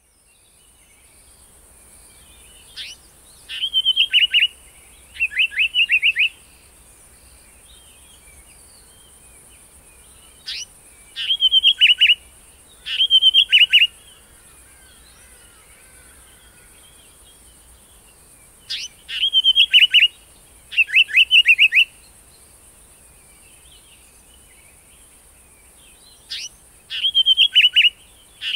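Indian paradise flycatcher calling in four bouts about eight seconds apart. Each bout is a single sharp note followed by two quick rattling bursts of short falling notes.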